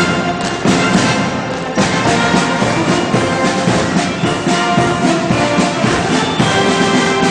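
A band playing music with brass and drums, with steady held notes and frequent drum strokes.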